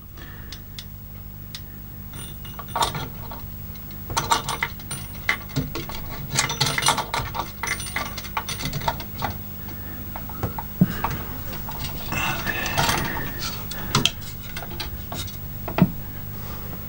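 Arctic Freezer Xtreme aluminium tower heatsink and its mounting hardware being handled and seated on a CPU socket: scattered clicks, taps and short rattles of metal and plastic, with a low steady hum underneath.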